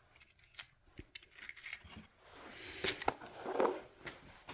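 Scattered light clicks, taps and rustling of small parts and tools being handled on a workbench, as someone rummages through them.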